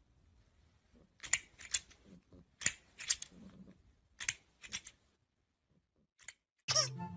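Three quick groups of sharp clicks or snips, about a second and a half apart, two or three clicks to a group. Music starts suddenly near the end.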